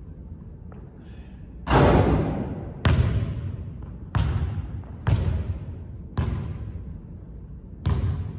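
A basketball bouncing on a hardwood gym floor: six single, slow bounces about a second apart. Each hit echoes and dies away through the large hall, and the loudest comes about two seconds in.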